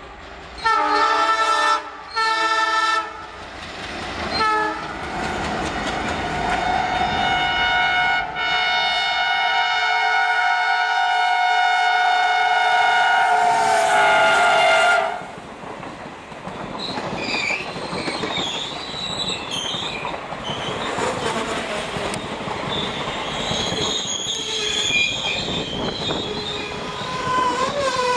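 ALCo diesel locomotives sounding their multi-tone air horns: two short blasts, then a long blast held for about nine seconds whose pitch sags as it ends. Then the wheels clatter over the rails and a passenger train's brakes and wheels squeal as it brakes hard to a stop.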